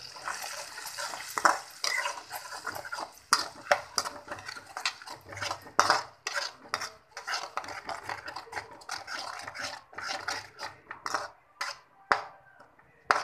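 Metal spatula scraping and clinking against a metal kadhai as onion paste is stirred in hot oil: irregular strokes, several a second.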